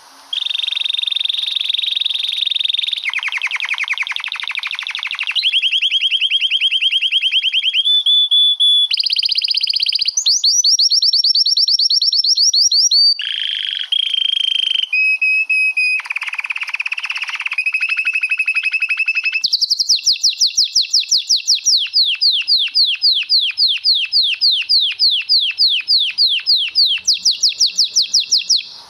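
Male domestic canary singing one long unbroken rolling song: a string of rapid trills and fast repeated notes, each held for a few seconds before switching to another, high and clear. The song stops abruptly near the end.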